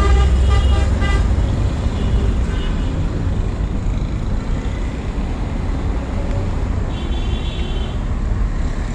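Steady low rumble of road traffic, with short horn toots in the first second and another short high tone about seven seconds in.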